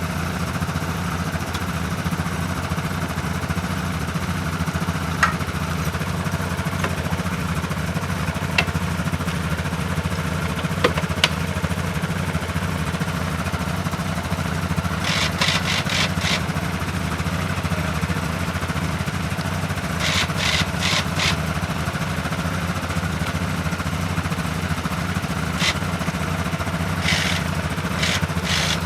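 ATV engine running steadily with an unchanging note. A few single sharp ticks, then three short bursts of rapid clicking or rattling, break in over the engine.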